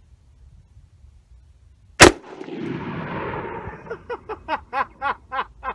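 A single shot from a 7.5-inch-barrel AR pistol about two seconds in, its echo trailing off over the next second and a half. A quick run of short pitched sounds, about four a second, follows near the end.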